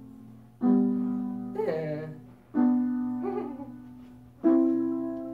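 Piano chords struck three times, about two seconds apart, each ringing and fading away, with a voice singing a short drawn-out "yeah" between them.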